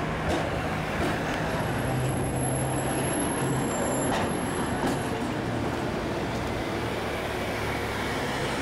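Vintage electric streetcar passing close by on street tracks in city traffic, a steady rumble with a low hum and a few sharp clicks from the running gear.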